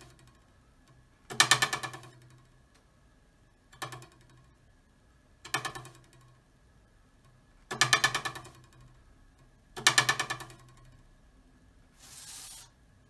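A metal ruler held over a table edge plucked five times, each pluck a buzzing twang that rattles against the table and dies away within about a second. The first, fourth and fifth plucks are loud and the second and third soft, showing louder and quieter sound from the same vibrating ruler. A faint short hiss follows near the end.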